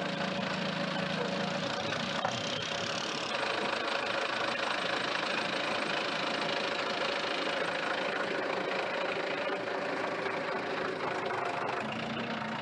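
Diesel engine of a Belarus wheeled tractor with a front loader, running steadily.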